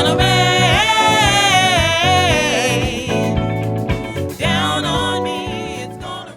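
A band playing a song, with a singing voice holding wavering notes over the instruments. The music tails off near the end as the song finishes.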